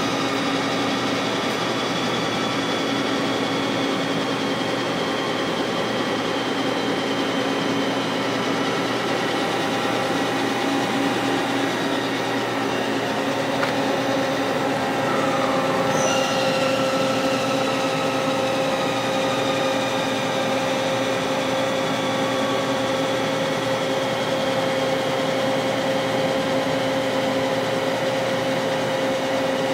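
Hardinge CNC lathe running, its motors giving a steady mechanical hum with several whining tones; about halfway through the tones slide and settle into a new steady whine.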